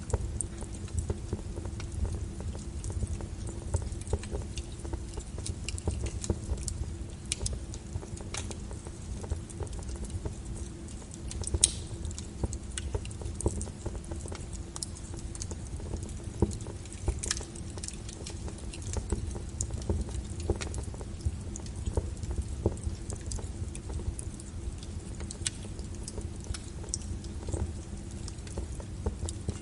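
Wood fire burning in a fireplace: a steady low rumble of flame under irregular crackles and pops, with a few sharper pops about 12 and 17 seconds in.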